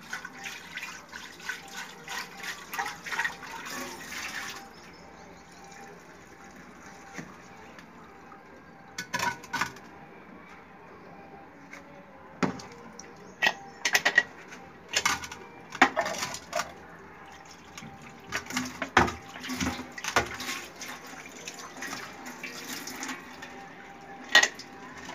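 Tap water running and splashing into a metal pot for about four seconds, then scattered sharp clanks and knocks as an aluminium pressure cooker and its lid are handled.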